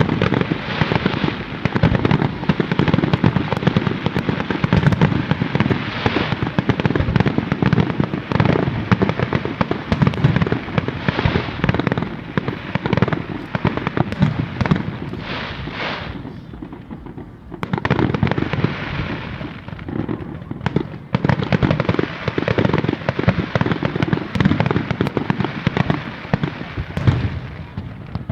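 Aerial fireworks display: a dense, continuous barrage of shell bursts, booms and crackle, easing briefly about two-thirds of the way through before picking up again.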